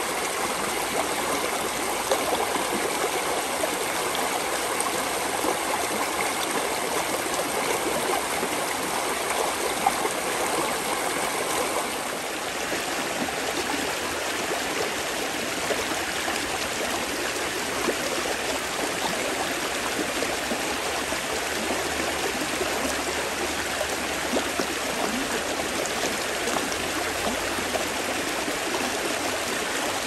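A small, fast stream rushing and splashing over rocks and a submerged board. About twelve seconds in, the sound changes to water spilling over rock close by, a little quieter.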